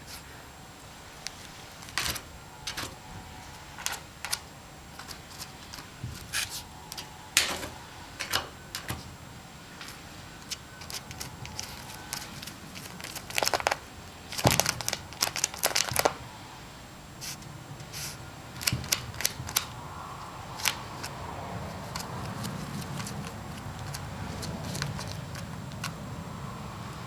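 Yorkshire terrier digging in sandy, pebbly soil, its paws scraping and flinging dirt and small stones in irregular quick scratches, with a dense flurry about halfway through.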